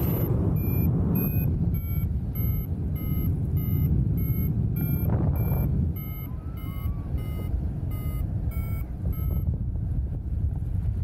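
Paragliding variometer beeping in rapid short tones, about two to three a second, the pitch shifting a little from beep to beep: the sign that the glider is climbing in lift. Under it runs a steady rush of wind on the microphone, and the beeping stops near the end.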